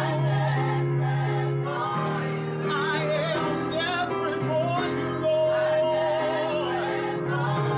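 Gospel vocal group singing with vibrato over sustained accompanying chords.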